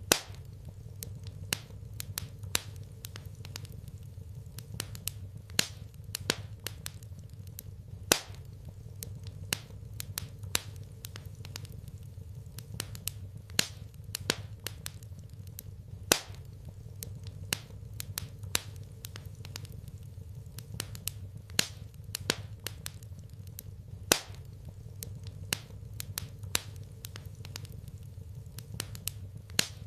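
Wood fire crackling in a fireplace: sharp pops and snaps at irregular intervals, a few much louder than the rest, over a steady low hum.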